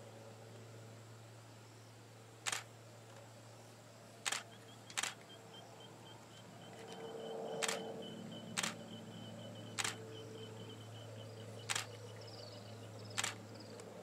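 Camera shutter clicks, about eight single sharp clicks at irregular intervals a second or two apart, over a steady low hum.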